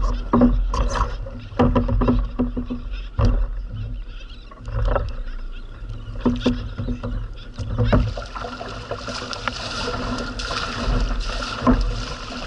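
Scattered knocks and bumps on a plastic sit-on-top kayak as a fish is handled and stowed. From about eight seconds in, a steady rush and splash of water along the hull as the kayak is paddled forward.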